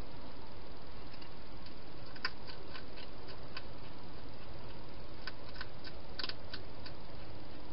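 Hedgehog chewing food at a bowl: irregular sharp clicks in two short clusters, over a steady background hiss.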